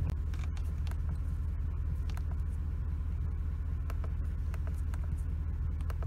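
Ford 5.4 L Triton V8 idling steadily, heard from inside the truck's cab, with its misfiring ignition coil replaced.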